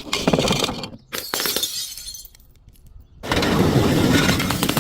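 Glass bottles being smashed and crushed: two bursts of breaking and crunching glass, each lasting about a second, then a longer continuous crackling crunch of shards starting a little after three seconds in.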